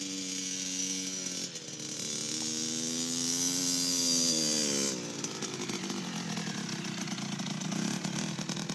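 Small dirt bike engine running, its pitch climbing from about two seconds in and dropping off near five seconds, then running rougher as the bike comes up close.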